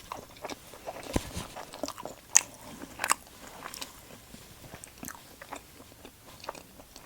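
Close-up eating sounds: biting and chewing crunchy cheesy garlic toast, with scattered mouth clicks and a few louder crunches about two and three seconds in.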